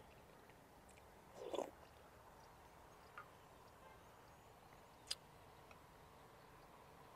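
Near silence with faint eating sounds: a short mouth sound of eating about one and a half seconds in, and a few faint clicks of a metal spoon, the sharpest about five seconds in.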